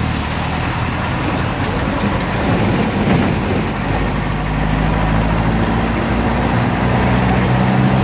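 Bus engine running and road noise while driving, heard from inside the bus, steady throughout. The engine hum becomes more distinct about halfway through.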